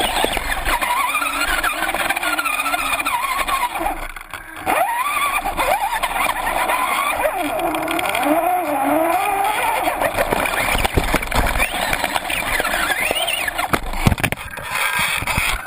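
Electric motor and gearbox of an Axial SCX-10 RC rock crawler on a 3S battery whining, the pitch wandering up and down with the throttle, picked up close by the camera on the truck. There is a sharp knock near the end.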